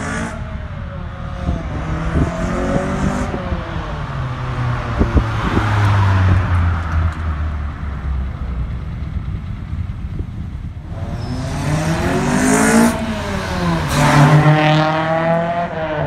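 Honda Civic EG's B18 inline-four, breathing through a velocity stack intake, revving hard as the car accelerates past. The pitch climbs and drops at each gear change, loudest near the end.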